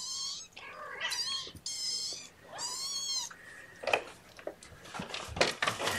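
Kittens about three weeks old meowing: four or five short, high-pitched cries in the first three seconds or so. Rustling and a few light knocks follow in the second half.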